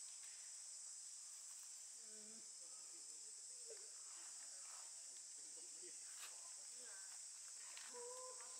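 Faint, steady high-pitched drone of insects in the vegetation. A few faint voices come through now and then, the clearest about two seconds in and near the end.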